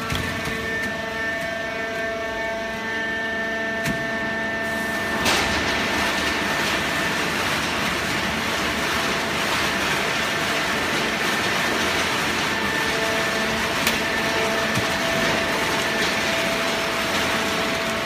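A fully automatic horizontal hydraulic baler running: a steady machine hum with several whining tones. A louder, even rushing noise sets in about five seconds in and holds.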